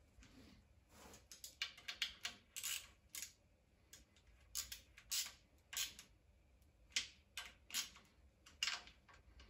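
Hand ratchet wrench clicking in short strokes, about a dozen quick rasping bursts, some in tight runs, as bolts on the front of the engine are run in.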